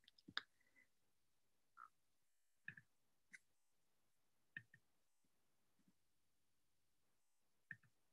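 Near silence with a few faint, scattered clicks, about six over eight seconds, like computer mouse clicks.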